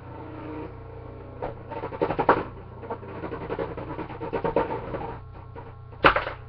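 Tornado Lacerta Beyblade spinning in a plastic Cyclone BeyStadium. From about a second and a half in, it rasps and clatters against the plastic in runs of rapid ticks, and one sharp knock comes near the end.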